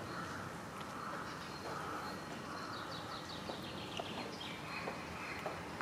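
A small songbird singing a quick run of short chirps that fall in pitch, about three seconds in, over a faint background with scattered soft clicks.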